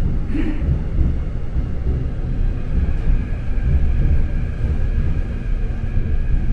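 Subway train running, a loud steady low rumble with a faint steady whine above it and a brief higher squeal about half a second in.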